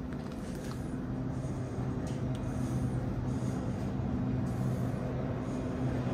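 Railway station ambience: a steady low drone from idling trains at the platforms, with a few faint clicks.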